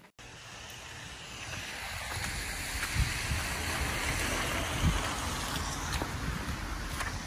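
Steady rushing noise that swells over the first couple of seconds, with two low thumps about three and five seconds in.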